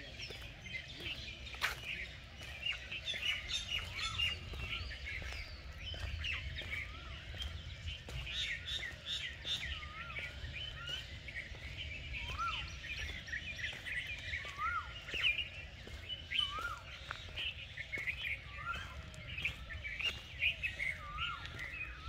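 Morning chorus of many birds chirping at once, with one bird repeating a short rising-and-falling whistle every second or two from about halfway in, over a low steady rumble.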